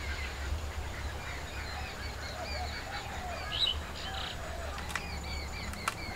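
Birds chirping and calling outdoors, many short quick notes overlapping, with a few sharp ticks near the end and a low steady rumble underneath.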